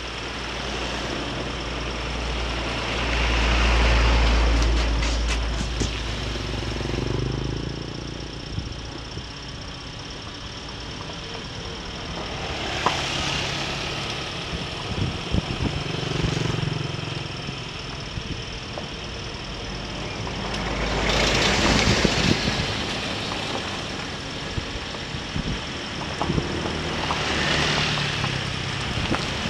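Riding noise from a motorcycle: the engine runs steadily under wind and tyre noise on a rough gravel road. The noise swells louder and fades four times.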